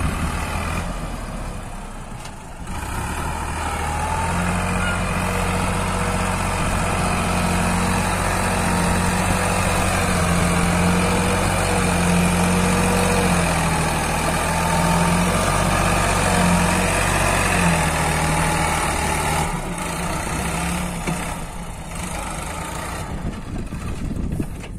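Sonalika tractor's diesel engine running loud and steady under heavy load as it drags a loaded earth leveller through loose soil. Its pitch wavers a little as the load changes.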